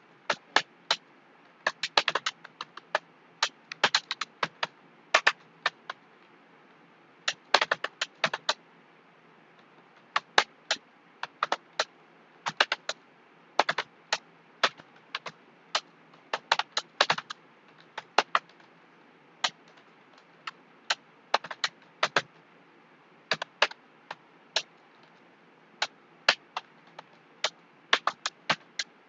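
Computer keyboard keys typed at an uneven, unhurried pace: single sharp clicks and short runs of clicks, broken by pauses of about a second.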